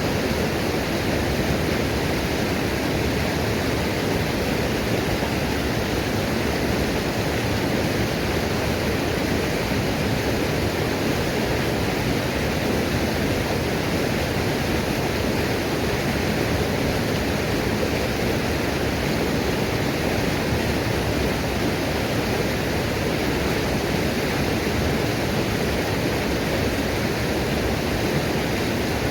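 Waterfall with a steady rush of falling water.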